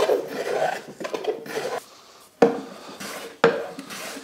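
Small hand plane shaving the edging strips flush with the sides of a veneered MDF box in repeated strokes, about one a second, each starting sharply, with a short pause about halfway through.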